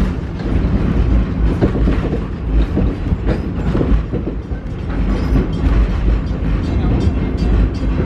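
Wildlife Express Train rolling along the track, heard from a passenger car: a steady low rumble of the cars with frequent clicks from the wheels and running gear.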